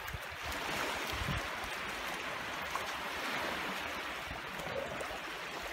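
Shallow sea water washing and lapping steadily over a rocky shoreline.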